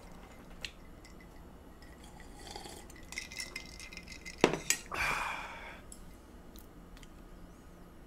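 Light clinks and taps of steel chopsticks, a drinking glass and dishes on a table, with a sharper clink about four and a half seconds in and a brief rushing noise just after it.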